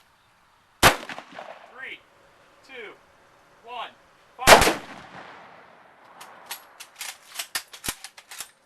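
Two loud gunshots about four seconds apart, with a few short downward-sliding tones between them. Near the end comes a quick, irregular string of smaller shots.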